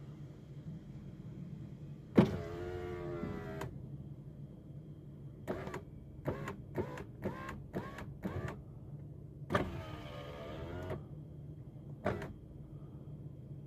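A car's electric power window motor runs twice, each time for about a second and a half, whining with a pitch that bends as it moves. Between the two runs come half a dozen short sharp clicks, and a steady low hum lies underneath.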